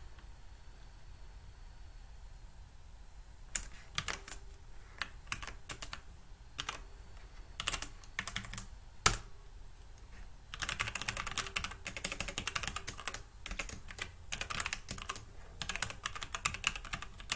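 Typing on a computer keyboard: scattered keystrokes a few seconds in, a single louder click around the middle, then a fast, continuous run of typing over the last seven seconds.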